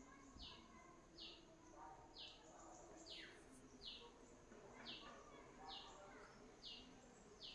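Near silence: a faint, short, high chirp with a slight downward fall, repeating evenly about once a second over a low hiss.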